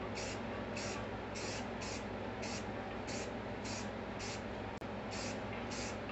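Aerosol can of gray primer spraying in short, even bursts, about two a second, over a steady low hum.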